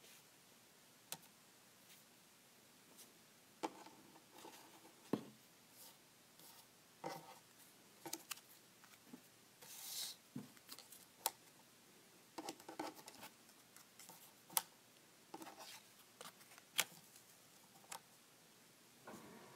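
Paper cut-outs being handled and laid onto a card mock-up: faint scattered rustles, light taps and small clicks of paper, with a longer paper slide about halfway through.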